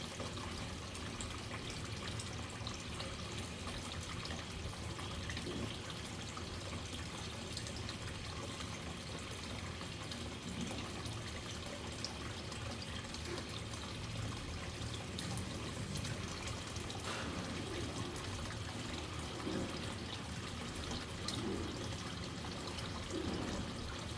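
Waterfall: steady rushing water, an even hiss without change.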